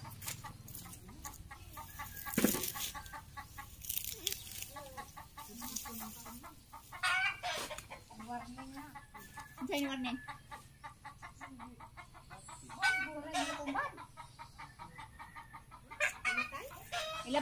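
Chickens clucking on and off, with a few sharp knocks in the first few seconds.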